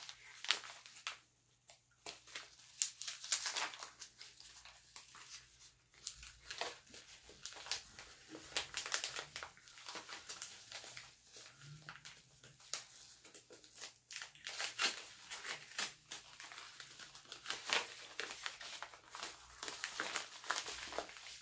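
Hands opening a mailed package: irregular crinkling, rustling and tearing of the packaging, with scattered sharp crackles.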